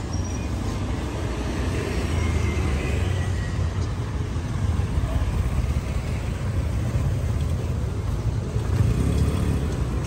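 Street traffic of small motorbikes and scooters running past, a steady low engine rumble.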